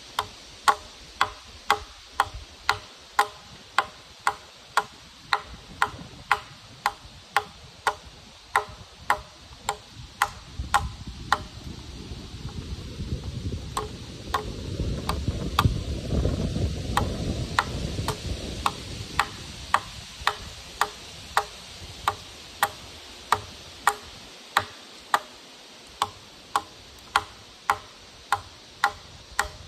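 Hatchet chopping into a peeled log in a steady rhythm of sharp wooden knocks, a little under two strikes a second. A low rumble swells and fades in the middle, and the strikes are fainter while it lasts.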